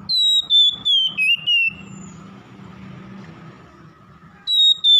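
Oriental magpie-robin singing: loud, clear whistled notes that step slightly down in pitch. One phrase of several notes comes at the start and lasts under two seconds, and a second phrase begins near the end.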